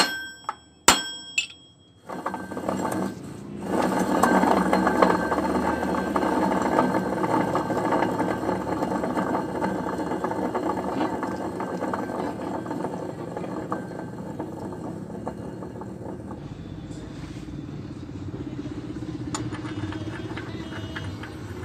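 A few sharp, ringing hammer blows on steel as a bearing is tapped onto a shaft in a rotavator's side gear case. From about two seconds in, a motor vehicle engine runs steadily and eases off a little after about sixteen seconds.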